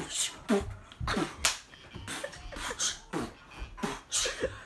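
A person's quick, breathy huffs and short vocal noises in an irregular string, with a few sharp slap-like hits among them.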